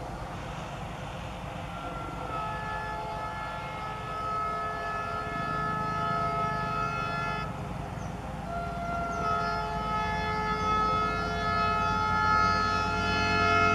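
YDM-4 metre-gauge diesel locomotive sounding its multi-tone air horn in two long blasts, the first starting about two seconds in, a brief break about halfway through, the second held to the end. Under it a low engine rumble grows louder as the train approaches.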